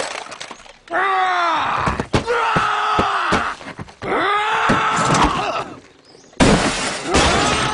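Cartoon character's wordless enraged groaning and yelling in long cries that fall in pitch, with a few thuds among them. A loud burst of noise comes in about six seconds in.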